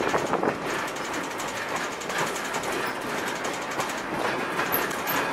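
Open-sided passenger railroad car rolling along the track, heard from on board: wheels running on the rails with a steady rumble and clatter.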